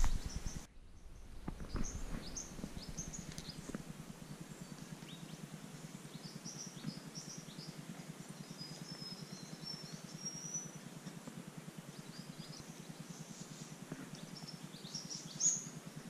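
Several small birds chirping and whistling in the bush, short high calls scattered throughout with a run of whistled notes in the middle and a sharper, louder call near the end, over a steady low hum.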